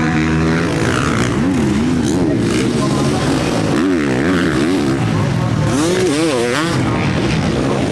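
Motocross bike engines revving hard on the track, the pitch rising and falling again and again as the riders throttle through jumps and corners.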